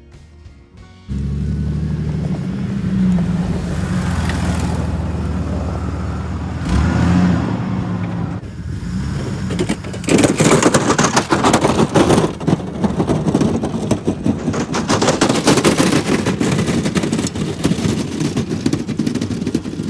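Old Jeep's engine running under load. From about halfway in, a louder, rough, rattling noise joins it.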